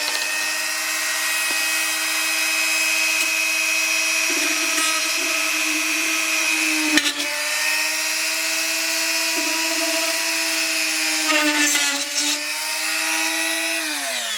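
Electric drill running steadily at constant speed while drilling holes in the side of a desktop PC case to mount a drive bay. There is a brief dip with a click about halfway, some rough chatter near the end, then the motor spins down.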